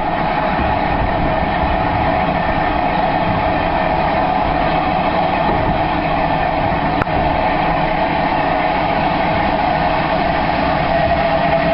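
Bulleid West Country Class Pacific 21C123 Blackmoor Vale's steam train running, a steady sound with a single sharp click about seven seconds in.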